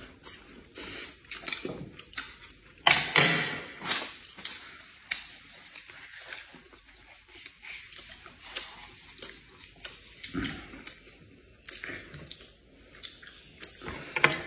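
Eating close to the microphone: irregular wet chewing, lip-smacking and sucking on food, with small clicks. The loudest smacks come about three to four seconds in.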